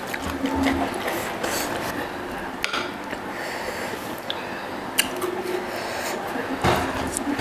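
Close-up eating sounds: chewing, with wet mouth clicks and lip smacks scattered throughout, as cooked leafy greens and sambal are eaten by hand.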